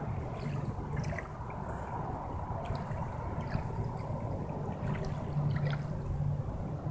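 Small ripples lapping and trickling at a sandy shoreline, with a low steady drone underneath that swells a little about five seconds in.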